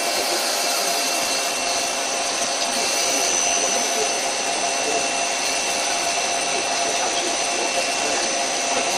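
Doosan CNC lathe running with its spindle turning at about 700 rpm: a steady machine hum with several constant high tones, unchanging throughout.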